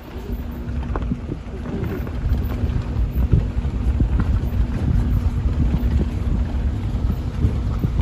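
Wind buffeting the microphone in an uneven low rumble, with a faint steady hum underneath.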